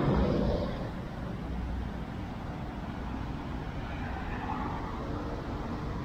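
City street ambience with a vehicle going past, loudest in the first second and fading into a steady low traffic rumble.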